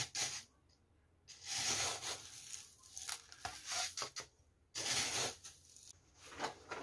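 Small gravel potting mix rustling and scraping in a series of short bursts as a succulent's root ball is worked into the pot with gloved hands.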